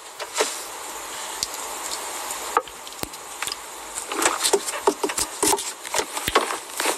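A steady hiss for the first couple of seconds, then a scatter of light clicks and short rustles, handling noise close to the phone's microphone.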